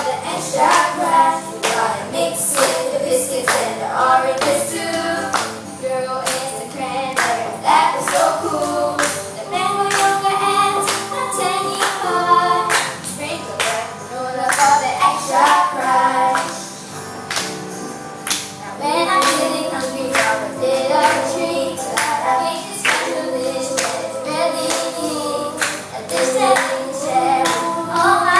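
Children singing a blues song over a backing track with a steady beat.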